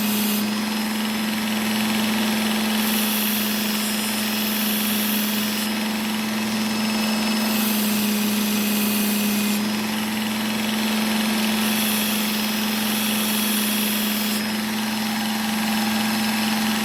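Work Sharp Ken Onion Edition belt sharpener running steadily on its fine 1200-grit belt, its motor giving a constant hum. A high grinding hiss rises and falls every few seconds as a small whittling knife's edge is drawn across the belt, about three passes.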